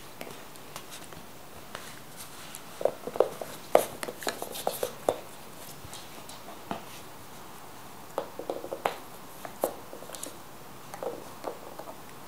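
American Hairless Terrier puppy chewing and pawing at a small ball on a plush toy, giving irregular clusters of short, sharp clicks and taps.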